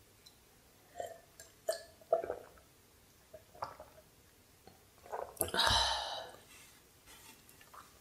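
Close-miked gulps of a fizzy red soft drink, several short wet swallows in the first few seconds, then a loud breathy release from the throat about five and a half seconds in.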